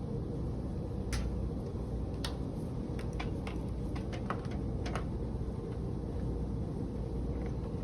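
Scattered light clicks and taps from handling oscilloscope probes and test cables on a bench, over a steady low hum. The clicks come mostly in the first five seconds.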